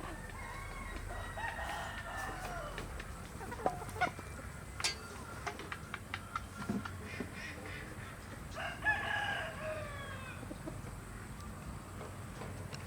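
Rooster crowing twice, once near the start and again about nine seconds in, with scattered sharp clicks and knocks between the crows.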